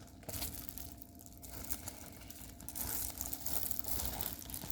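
Crinkling of plastic packaging being handled, in irregular small crackles.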